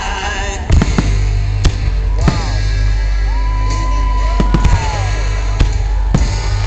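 Aerial firework shells bursting with several sharp bangs over loud music with a heavy, steady bass.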